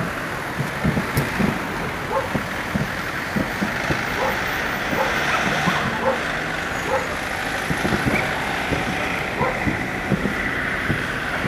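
Distant aerial fireworks shells bursting in a quick, irregular run of muffled booms, over a steady background noise.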